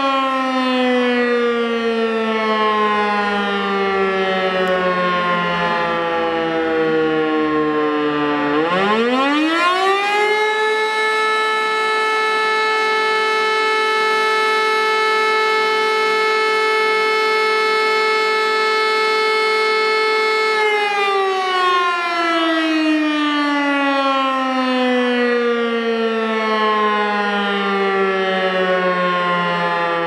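E57 electric rotary siren sounding a fire-brigade call-out alarm. Its tone falls as the rotor winds down, then about eight seconds in it climbs quickly back up. It holds a steady wail for about ten seconds, then winds down again in a falling tone.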